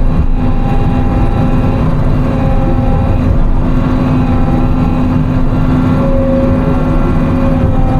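Timberjack 608 machine's diesel engine and hydraulics running steadily under load, heard from inside the cab, with a deep rumble and a steady whine over it.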